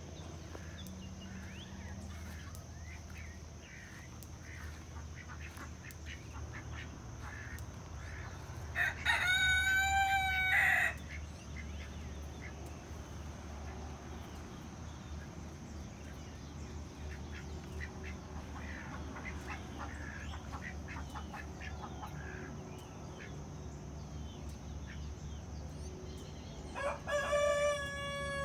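A rooster crowing twice, each crow about two seconds long: once about nine seconds in and again near the end. Hens cluck softly in between.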